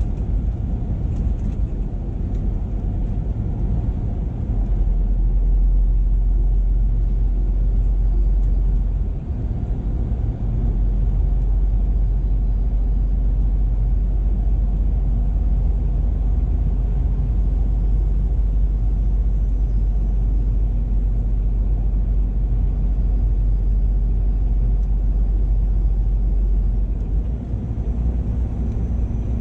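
2007 Scania R480 truck running at road speed, its diesel engine and road noise making a steady low rumble. The rumble grows heavier about four seconds in, dips briefly twice a few seconds later, and eases a little near the end.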